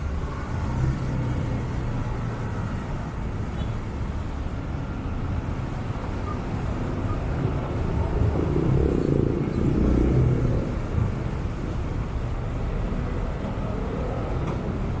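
Motorcycle engine running at low speed in slow, heavy city traffic, mixed with the rumble of surrounding cars and trucks. The rumble swells louder about nine seconds in.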